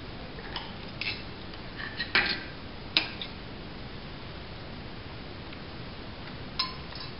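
Knife and fork clinking and scraping against a plate: a few sharp clicks in the first three seconds, the loudest about two and three seconds in, then one ringing clink near the end.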